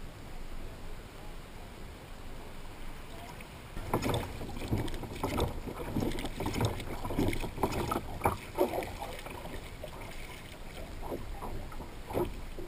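Water slapping and splashing against the hull of a plastic sit-on-top kayak, with wind on the microphone. A faint steady wash at first, then from about four seconds in a run of irregular slaps and knocks.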